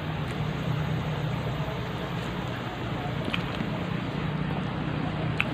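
Steady hiss of background noise with a low hum underneath, and a few faint clicks, the sharpest just before the end.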